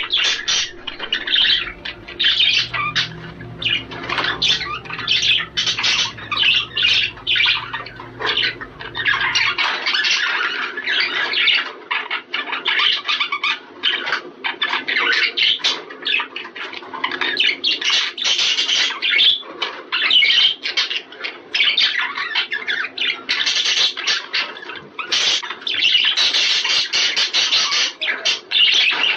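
Budgerigars chattering and warbling in a fast, continuous stream of chirps and squawks: the excited warble of a male budgie in breeding condition. A low steady hum sits underneath and stops about a third of the way in.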